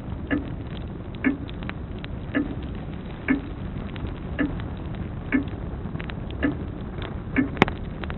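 Grandfather clock ticking about once a second over a crackling wood fire, with scattered small snaps. One sharp, loud pop from the fire comes near the end.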